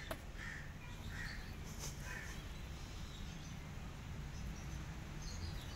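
A crow cawing three times in quick succession, harsh calls about a second apart, over a steady low outdoor rumble.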